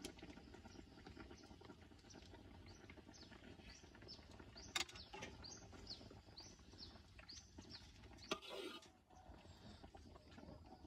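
A bird calling with a run of short, falling chirps, about two or three a second, over a faint low background. Two sharp clicks come about five and eight seconds in.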